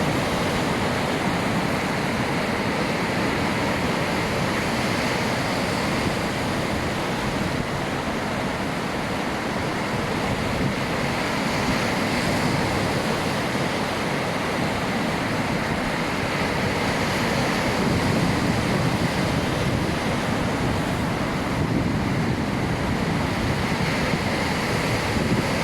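Ocean surf: waves washing in a continuous rush that swells and eases gently.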